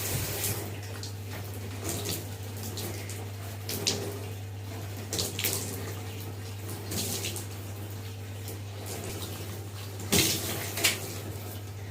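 Running water splashing irregularly, with a few louder splashes about ten seconds in, over a steady low hum.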